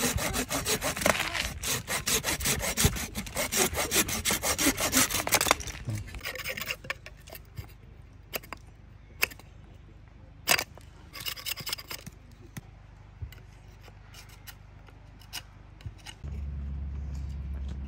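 Folding pruning saw cutting through a forked branch in quick, steady back-and-forth strokes for about five and a half seconds. Then a knife whittles the wood in sparse scrapes and clicks, and a steady low rumble sets in near the end.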